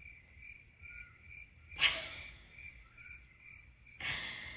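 A faint, high chirp repeating about twice a second runs steadily in the background. About two seconds in comes one short, loud, noisy sound, and a breathy sound begins near the end.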